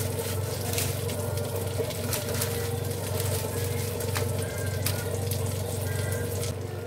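Kitchen scissors snipping through a crisp fried breaded chicken cutlet, with short crunching cuts and clicks of metal tongs several times, over a steady low hum.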